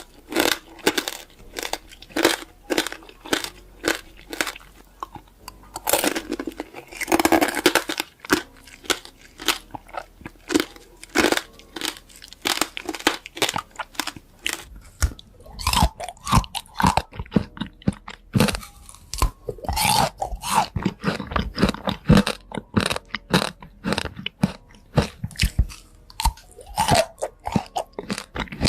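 Close-up, crunchy chewing of crisp fresh fruit: a steady run of sharp crunches, several a second. About seven seconds in comes a longer crunching bite, and from about halfway on the chewing turns heavier and wetter.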